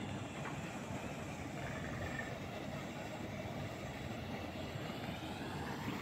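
Faint, steady outdoor background noise: an even hiss and rumble with no distinct events.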